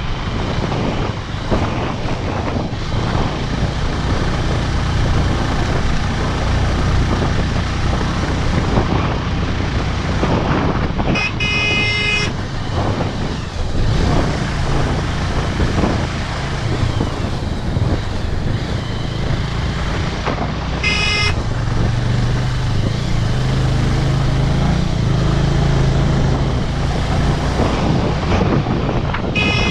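Motorcycle engine running with wind and road noise while riding, and a horn beeping three times: for about a second some eleven seconds in, briefly about twenty-one seconds in, and again near the end.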